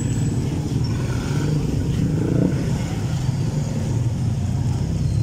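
Street traffic: motorcycle and car engines running close by, a steady low rumble.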